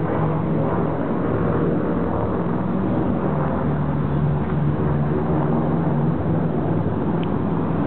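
Engines of a four-engine propeller airliner-type aircraft running steadily at high power, a continuous low hum with a constant pitch.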